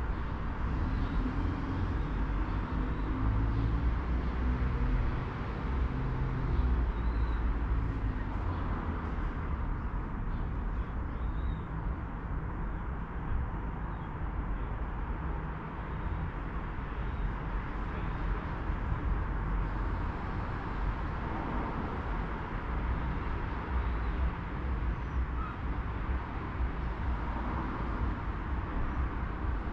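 Steady low rumble of urban background noise, with no distinct event standing out.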